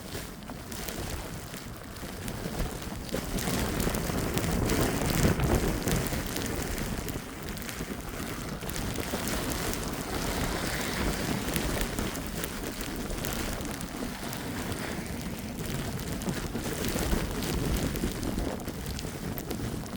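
Snowstorm outdoors: gusting wind rumbling on the microphone, swelling a few seconds in, with a steady crackle of footsteps crunching through snow.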